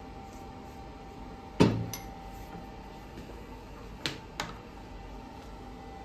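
Espresso tools and a ceramic cup being set down on a counter: one heavy metallic clunk with a brief ring about a second and a half in, then two light clinks in quick succession near four seconds, over a faint steady hum.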